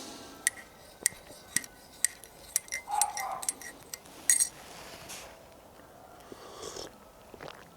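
A spoon clinking lightly against a cup of freshly brewed coffee: a string of small, irregular clinks, about one every half second at first, thinning out over the last few seconds.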